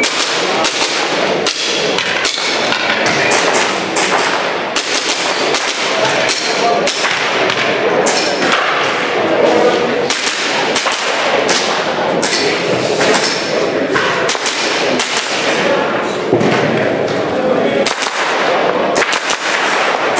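Gas blowback airsoft race pistol firing strings of sharp cracks, many shots with short gaps between the strings, over a steady background of crowd chatter in a large hall.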